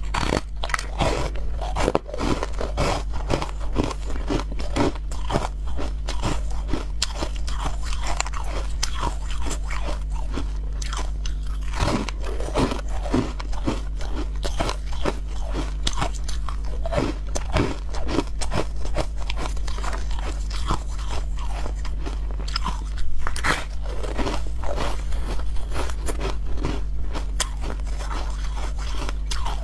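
Frosted yellow ice being bitten and chewed: a dense, irregular run of sharp cracks and crunches, with louder bites every few seconds.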